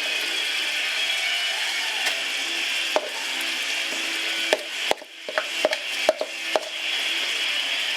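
King prawns sizzling steadily in a hot frying pan, with a run of sharp clacks and knocks from a kitchen utensil in the second half as the Thai pesto goes into the pan.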